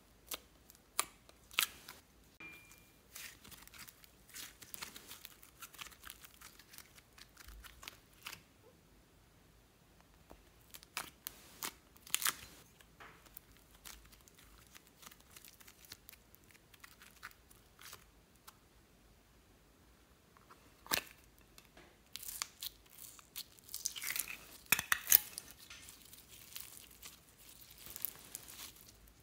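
Hands squishing and stretching slime in a glass dish: scattered sticky pops, clicks and crackles. The crackling gets denser and louder over the last several seconds, as red foam-bead slime (floam) is pulled apart.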